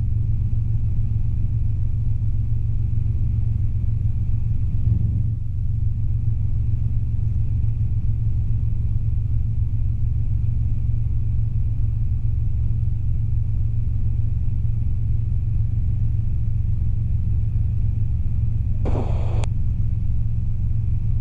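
Robinson R22 helicopter in flight: its engine and rotor drone steadily, a constant low hum with a thin steady high whine above it. About nineteen seconds in, a short burst of noise ends in a sharp click.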